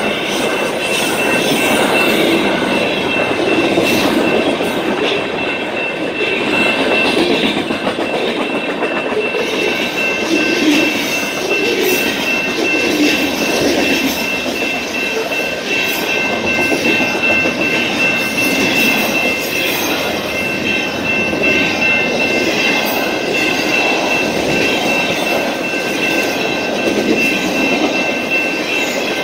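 Freight cars of a long train rolling past close by: steady rumble of wheels on rail with clickety-clack over the rail joints and a thin steady high-pitched squeal.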